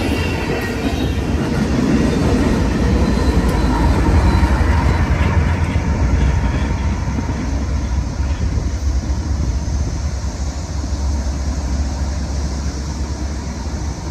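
Double-stack intermodal freight train rolling past at close range: a steady, heavy rumble of steel wheels on the rails that eases off somewhat in the second half.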